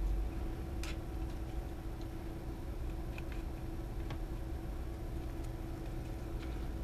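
A small one-handed bar clamp being fitted and tightened onto the printer's metal frame: scattered sharp clicks and ticks, the strongest about a second in, over a steady low hum.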